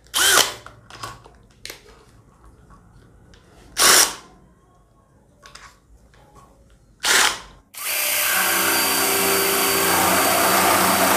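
A cordless drill driving a reciprocating saw attachment. After three brief bursts, it starts about eight seconds in and runs steadily as the blade saws through a plastic pipe.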